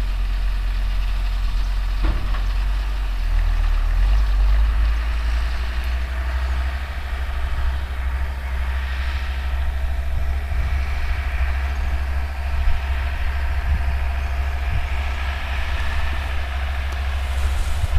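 Older Deutz tractor's diesel engine running steadily under load while driving a New Holland round baler, with the baler's mechanical noise over the deep engine rumble.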